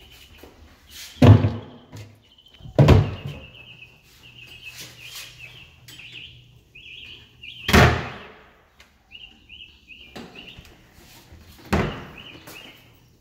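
Four loud thuds of doors being shut: about a second in, near three seconds, near eight seconds and near twelve seconds. Between them a bird chirps in quick repeated runs of short notes.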